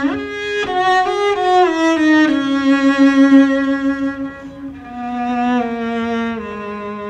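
A 1950s orchestral recording led by bowed strings: violins carry a slow melody of long held notes that slide from one pitch to the next, over cellos and basses.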